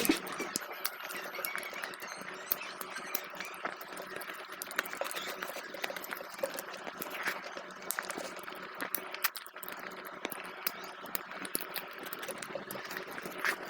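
Close-up wet eating sounds of soft rice congee being mixed and chewed, with many small irregular clicks and smacks.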